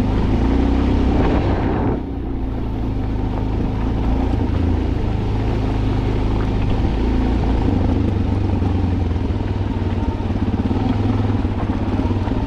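A vehicle engine running steadily, with a hiss over it that drops away about two seconds in.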